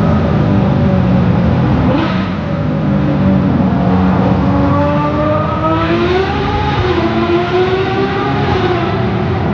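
Racing engine revving hard, its pitch rising and falling several times, with a steady lower engine drone underneath.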